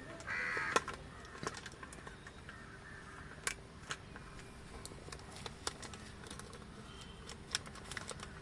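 Scattered light clicks and taps, irregular and spread through the whole stretch, over a faint steady hum, with a brief rustle in the first second.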